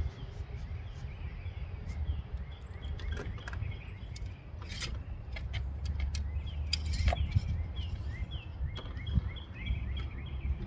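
Steady low outdoor rumble with a small bird chirping over and over in short falling notes. A few sharp clicks and knocks of handling come through, the loudest about seven seconds in.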